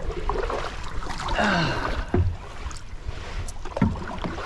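Kayak paddling: the paddle blades splash in the river water, with a few short knocks, over a steady low rumble on the action-camera microphone.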